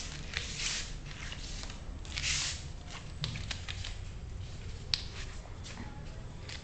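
Beagle puppies' paws and claws pattering and clicking on a hard stone floor, with a few short scratchy rushes of noise and one sharp click about five seconds in.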